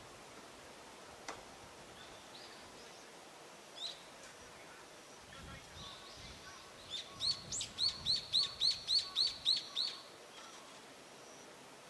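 A bird singing outdoors: a few scattered high chirps, then a fast run of about a dozen repeated, downward-sweeping notes at about four a second, lasting some three seconds.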